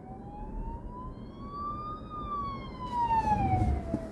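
Ambulance siren wailing, one slow rise in pitch over about two seconds and then a slow fall, over low road noise.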